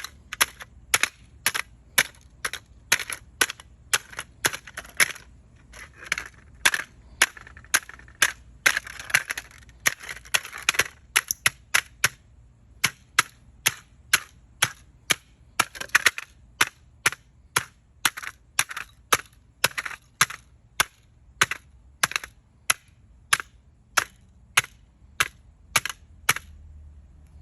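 Hammer blows striking the broken plastic remains of a smoke alarm: sharp knocks about two a second, with crunching and rattling of pieces between them in the middle stretch. The knocks stop shortly before the end.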